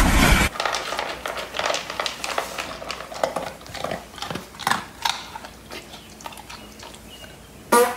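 Dog crunching dry kibble from a steel bowl: a run of irregular, crisp crunches and clicks. A loud noise cuts off about half a second in, and a brief pitched sound comes near the end.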